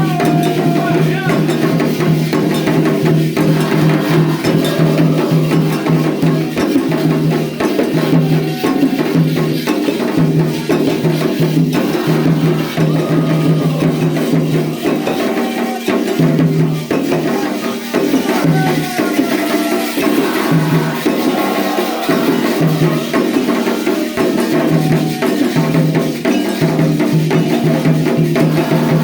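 Candomblé ritual music: hand drums and bright struck percussion keep a steady, repeating rhythm under chanted singing.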